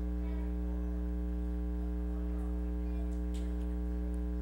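Steady electrical mains hum with many overtones, a constant low buzz on the church sound system's audio feed.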